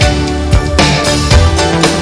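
Background music with a steady beat and sustained instrument tones.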